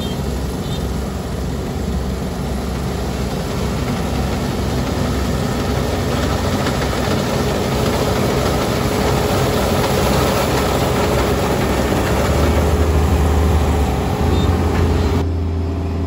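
Kubota ER470 combine harvester's diesel engine and threshing machinery running steadily as it cuts rice, growing louder as it draws near. Near the end the sound changes abruptly to a duller, steadier running.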